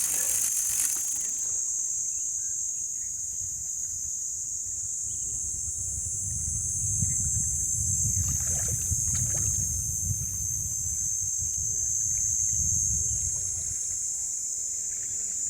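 Steady high-pitched chirring of crickets or other insects. A low rumble rises under it for several seconds in the middle and fades out near the end.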